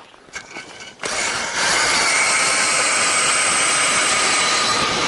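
Ice auger driven by a cordless drill boring through river ice: the motor starts about a second in and runs with a steady whine as the blades cut.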